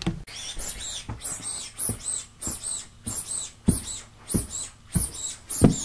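A steady run of short high-pitched squeaks, each with a soft thump, about one every half second, in step with footsteps on carpet.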